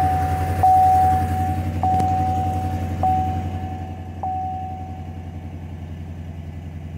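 2015 Chevy Silverado 2500HD's LS V8 idling steadily just after starting. The dashboard warning chime dings about every second and a quarter, getting fainter, and stops about five seconds in.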